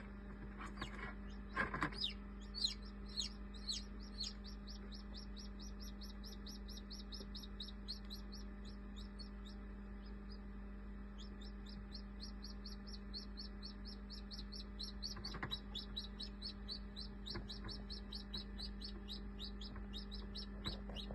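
Hatching chick peeping: a long, fast run of short high peeps, each falling in pitch, about five a second, with a pause of about a second near the middle. A few soft knocks come in the first two seconds and again later.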